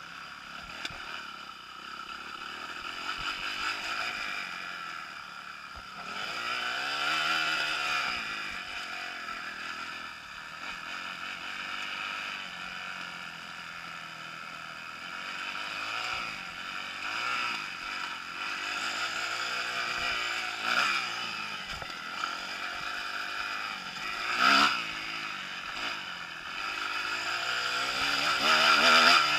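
Kawasaki KX250F's single-cylinder four-stroke engine revving up and down over and over as the dirt bike is ridden hard, heard from a rider-mounted camera. A sharp knock comes about twenty seconds in and a louder one about twenty-five seconds in, and the revs climb again near the end.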